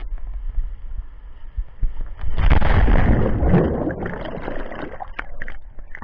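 Water slide ride inside an enclosed tube: rushing water and the rider sliding against the tube rumble, then a loud surge of splashing water for about a second and a half about two seconds in as the rider plunges into the splash pool, followed by muffled underwater bubbling and clicks.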